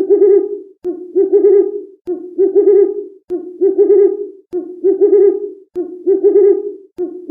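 Owl hooting: a low, wavering call repeated at an even pace, about one every 1.2 seconds, each one starting with a sharp click.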